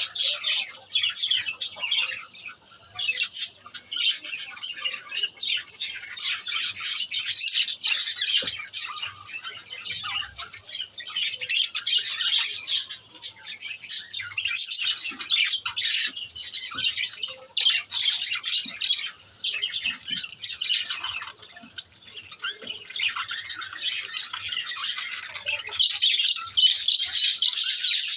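Lovebirds chattering and squawking continuously, a dense run of shrill calls with a few brief lulls, growing louder near the end.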